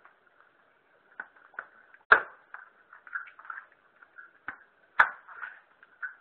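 A blade chopping into a green coconut on a wooden rail: a series of sharp knocks, with two loud strikes about three seconds apart and lighter taps between them.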